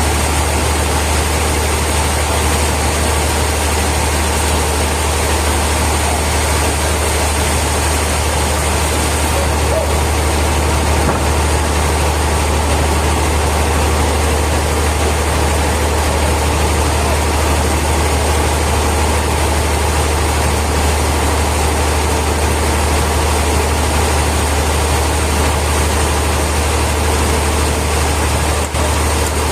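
Heavy sawmill machinery running steadily with a deep, unchanging low hum.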